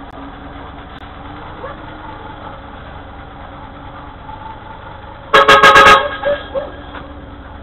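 Garbage truck horn sounding one short, loud, distorted blast a little over five seconds in, above the steady low hum of the truck's engine, heard through a security camera's microphone.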